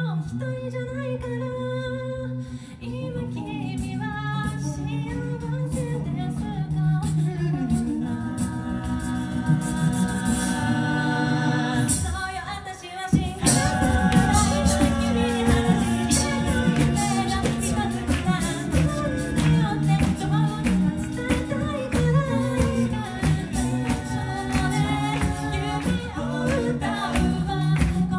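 Six-voice a cappella group singing through microphones: a melody over held harmonies and a low bass line, with vocal percussion clicking out a steady beat. About 13 seconds in it thins out for a moment, then comes back fuller and louder.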